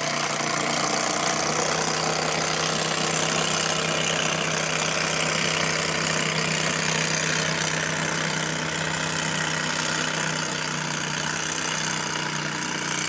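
An engine running steadily at one even pitch, cutting in abruptly.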